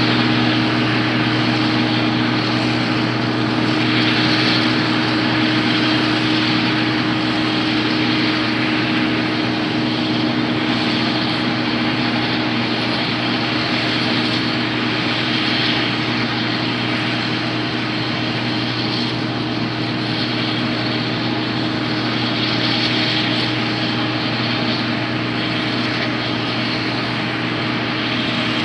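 Combine harvester running steadily: a constant engine drone with a hiss of threshing and machinery over it.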